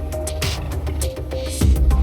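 Background music with a steady beat, deep bass and a short repeating melody.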